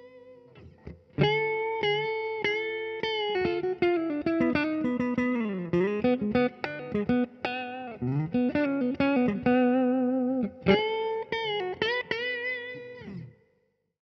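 Clean electric guitar, a 2010 Gibson SG Standard with an aluminum Halon tailpiece through a Fender 80s Super Champ amp, playing a single-note solo with string bends and vibrato. The last note of the previous phrase rings out and fades, a new phrase starts about a second in, and the playing cuts off abruptly near the end.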